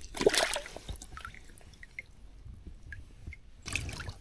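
Water splashing twice, briefly in the first second and again near the end, with scattered drips and trickling between.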